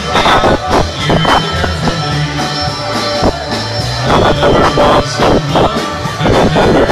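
Loud dance music with a steady beat and a running bass line.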